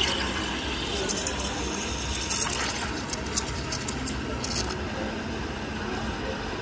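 Espresso machine steam wand steaming milk in a stainless steel pitcher: a steady hiss with short, sharper high flares now and then as air is drawn in to froth the milk.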